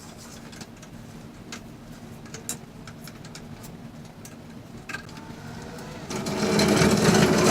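Flux-core wire-feed welder: a low steady hum with a few light clicks, then about six seconds in a loud crackling, buzzing arc of about a second and a half as a short weld bead is laid.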